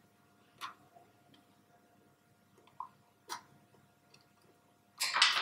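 Small crosshead screwdriver working the screw of a handheld particle counter's plastic battery cover: a few faint, separate clicks, then a louder brief handling noise near the end.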